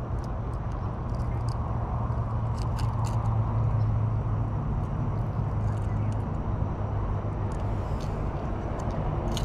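Steady outdoor background noise, a low hum under an even hiss, with a few faint clicks.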